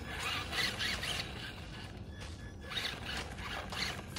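Electric motor and gear drivetrain of a 1/18-scale Traxxas LaTrax Rally RC car whining in several short bursts that rise and fall in pitch as the throttle is worked.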